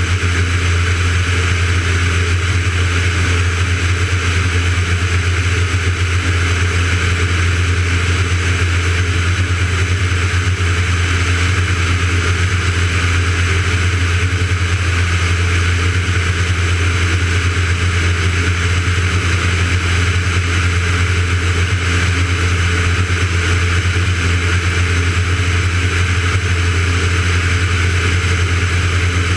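Van's RV-9A's piston engine and propeller running steadily at climb power, a constant low drone, heard from a camera under the wing.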